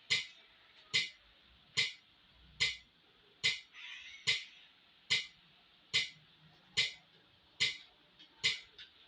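Metronome ticking steadily at about 70 beats a minute, each tick a sharp click at the same loudness, with a brief rustle about four seconds in.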